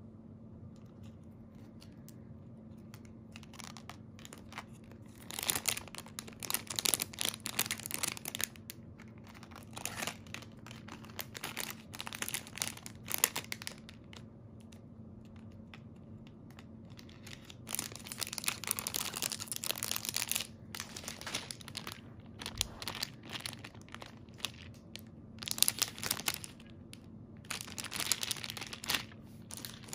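Thin clear plastic jewelry bags crinkling as they are handled, in irregular bursts of a few seconds with quieter gaps between.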